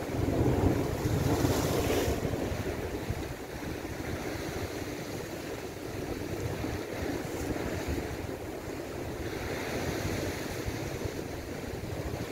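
Sea surf washing against shoreline rocks, with wind buffeting the microphone; a louder surge of surf comes in the first couple of seconds.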